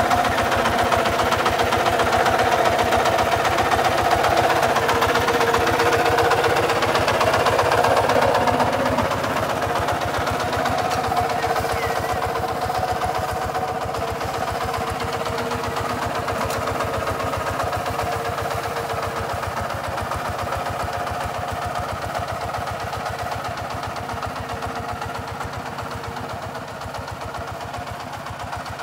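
Kubota RT140 DI walk-behind tractor's single-cylinder diesel engine running steadily with a fast, even knock of firing strokes. It grows gradually fainter as the tractor moves away.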